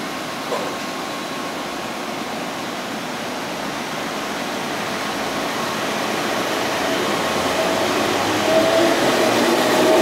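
Enshū Railway 30-series electric railcar, which has nose-suspended traction motors, pulling out of the station. A steady hum while it stands gives way, from about halfway, to a growing motor-and-gear whine as it gathers speed, getting louder toward the end.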